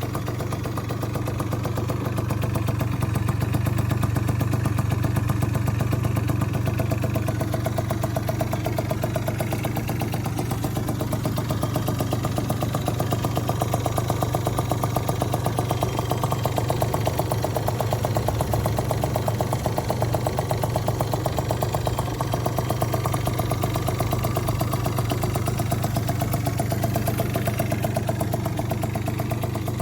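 Yamaha Jog Poche (3KJ) scooter's two-stroke single-cylinder engine idling steadily.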